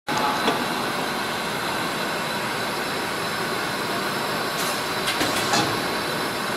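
Automatic servo-driven CNC screen printing machine for glass bottles running: a steady mechanical hiss and hum with a faint high whine, and a few sharp clicks, most of them around five seconds in.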